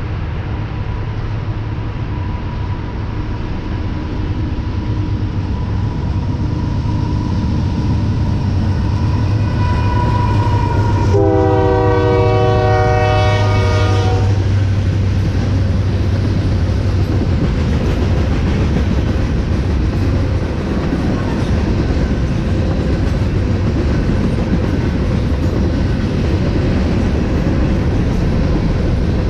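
Union Pacific freight train passing at track speed: locomotive diesel engines running, with the locomotive's air horn sounding one chord-like blast of about three seconds roughly eleven seconds in, then the steady rumble of covered hopper cars rolling past.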